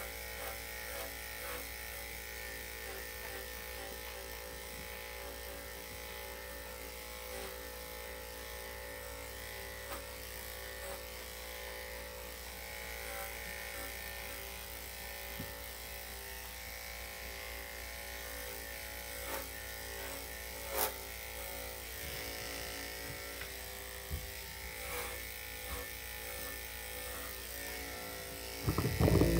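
Electric dog grooming clippers running with a steady hum as they cut through a small terrier's coat, with a few faint ticks. A louder knock of handling noise comes right at the end.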